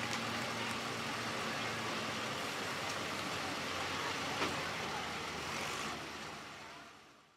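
A Case IH pulling tractor's engine running at low speed after its pull, a steady low hum under open-air noise. The sound fades out near the end.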